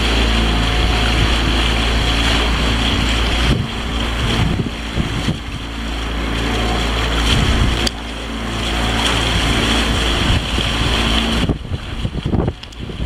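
Boat motor running steadily while the boat is under way, with water rushing along the hull and wind buffeting the microphone.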